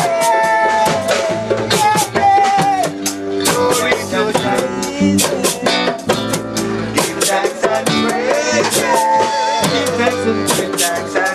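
Live reggae performance: a man singing long, bending melody lines into a microphone over a shaker rattling a steady beat and strummed accompaniment.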